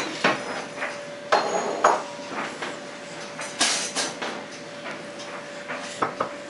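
A toddler eating corn on the cob: a string of sharp knocks and short clatters, with two knocks close together about six seconds in as the cob is set down on a ceramic plate. A faint steady hum runs underneath.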